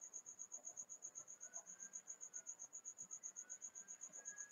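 Faint insect chirping: a high note pulsing evenly about eight times a second.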